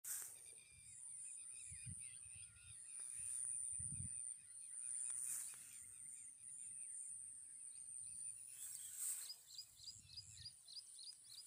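Field ambience: birds chirping in quick repeated notes over a steady high-pitched insect drone, ending in a fast run of short rising chirps. Soft low thumps from wind or handling on the microphone.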